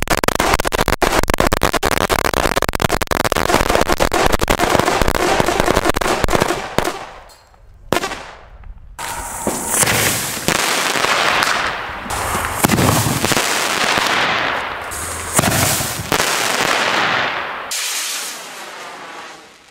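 A firecracker string going off as a rapid, dense volley of bangs for about six and a half seconds. Then a ground firework spews sparks in several surging, hissing bursts, and near the end a rocket faintly hisses upward.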